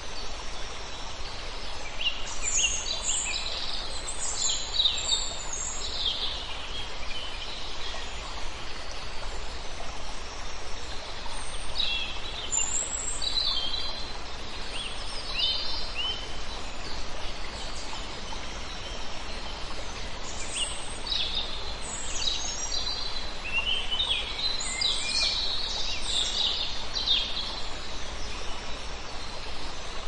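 Songbirds calling in short, high-pitched chirping phrases in three bouts, over the steady rushing of a small stream.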